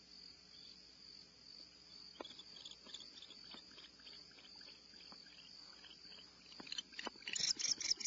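Crickets trilling in a steady high chorus, with scattered faint clicks from about two seconds in and a louder burst of rapid chattering pulses near the end.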